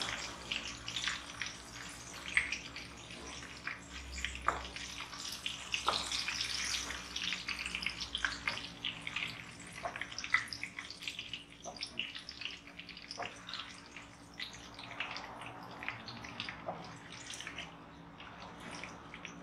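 Hot oil sizzling in a wok as tongkol fish and chilies fry, with a steady hiss and many scattered sharp crackles and pops.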